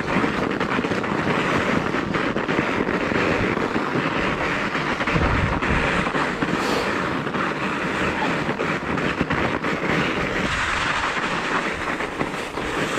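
Knobby mountain-bike tyre rolling over snow, a steady crackly crunch, with wind buffeting the microphone.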